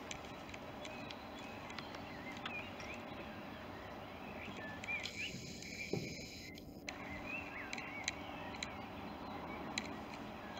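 Diesel locomotive's engine running low and steady as it creeps slowly forward, with birds chirping throughout and a few sharp clicks.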